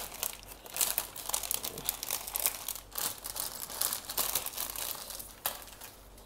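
Thin clear plastic bag crinkling and crackling as hands open it and pull plastic model-kit runners and a sticker sheet out of it, dying down near the end.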